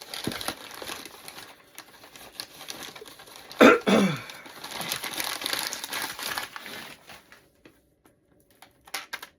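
Packing paper crumpling and rustling as a shipping box is unpacked, with one louder, sharper crackle about three and a half seconds in. After about seven seconds it thins to a few separate light clicks and taps.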